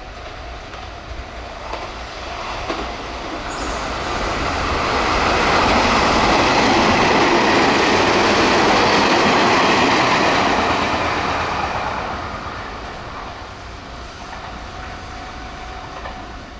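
A Meitetsu electric express train passes at speed. The noise of its wheels on the rails builds over a few seconds, stays loud for about four seconds, then fades away.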